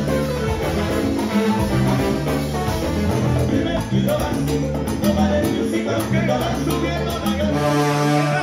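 Live salsa band playing, a trombone section over congas, timbales and keyboard, with some group singing. The band holds a long chord near the end.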